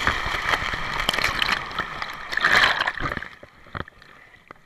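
Water rushing and splashing right against a body-worn action camera as a rider slides down a water slide. A loud surge of splashing comes about two and a half seconds in, and the sound drops much quieter about a second later.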